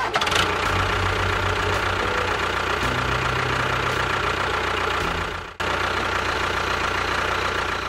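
Tractor engine running steadily at idle with a knocking beat. It breaks off briefly about five and a half seconds in, then carries on.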